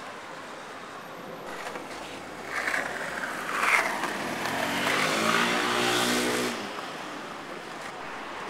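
A motor vehicle passing in street traffic: it grows louder from about two and a half seconds in, with a steady engine note, and fades away about seven seconds in.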